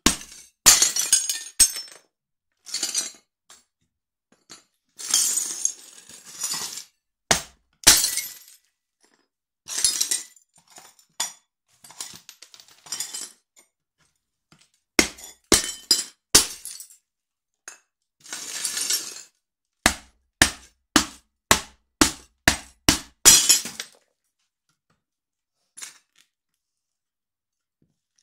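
Ceramic dinner plates cracking and shattering under the stamps of platform high heels, with broken shards clinking and crunching. Sharp cracks and crunching bursts come one after another with short pauses between them, and it falls mostly quiet for the last few seconds.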